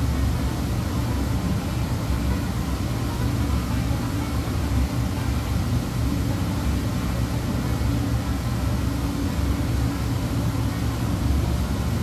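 Commercial hood-type dishwasher running a wash cycle: a steady low rumble with an even hiss above it.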